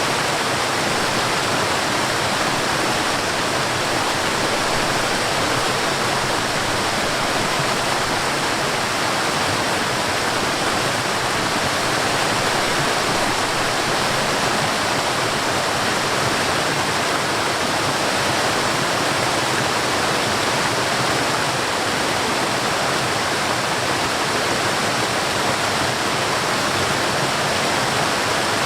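Water rushing steadily over a waterfall in a mountain stream, an even, unbroken rush.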